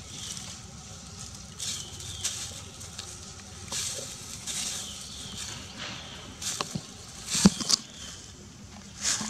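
Dry leaves and twigs rustling and crackling as macaques sit and pick through the leaf litter, with a few sharp snaps in the second half.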